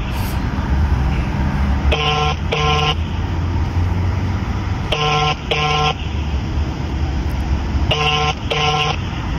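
Telephone ringback tone played over a phone's loudspeaker: the double "brr-brr" ring of a South African line, three double rings about three seconds apart while the call waits to be answered. A steady low rumble runs underneath.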